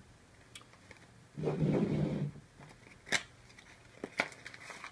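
Cardboard packaging being handled: a scraping slide of card against card lasting about a second, as a small white box is drawn out of its packaging, then a few sharp taps and clicks of the box being handled.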